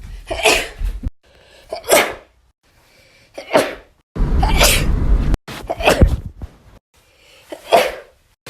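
A run of about six human sneezes, one after another, each a short sharp burst. The background noise changes abruptly between them, as at edit cuts.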